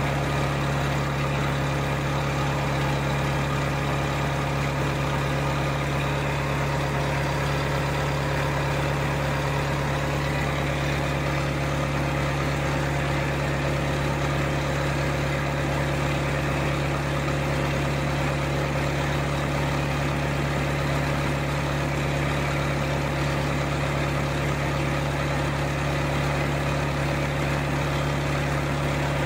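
Mitsubishi 4D31 four-cylinder diesel truck engine, installed as a boat's inboard engine, running steadily at a constant speed with a steady low hum.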